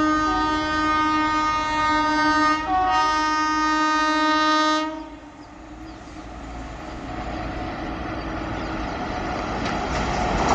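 Air horn of a WAP-7 electric locomotive sounding a long blast that carries over a short break about two and a half seconds in and stops about five seconds in. Afterwards the train's running rumble and wheel clatter grow steadily louder as it approaches.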